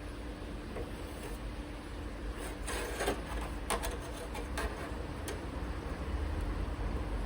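Light clicks and scrapes of small sheet-steel repair pieces being handled and offered up to the sill, bunched in the middle, over a steady low background hum.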